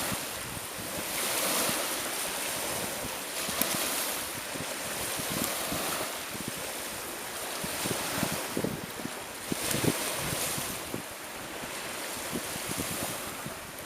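Wind rushing and buffeting the microphone, with an even rushing noise like breaking surf that swells and fades every few seconds.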